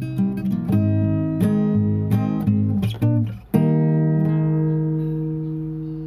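Acoustic guitar background music: picked notes, then a strummed chord about three and a half seconds in that rings out and slowly fades.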